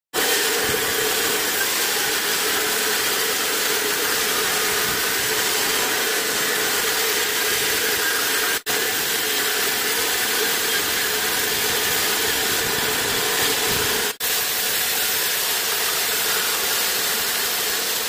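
Band sawmill running and sawing through a teak log: a steady, loud mechanical saw noise with a strong hum, cut off for an instant twice.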